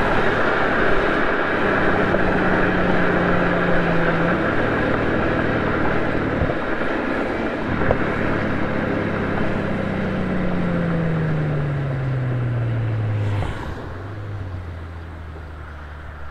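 Mercedes-Benz SL65 AMG's twin-turbo V12 heard from inside the cabin over steady road and wind noise while driving. The engine note holds, dips once, then falls steadily as the car slows, and the sound drops quieter near the end.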